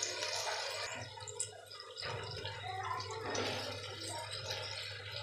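Chopped bottle gourd pieces sliding off a plastic colander into a clay pot of hot masala, landing with a wet patter and sizzle. A short lull with a single click comes about a second and a half in.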